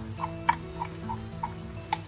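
Wooden spatula knocking and scraping against a glass blender jar while ground spice paste is scraped out into a wok: a row of light taps, about three a second.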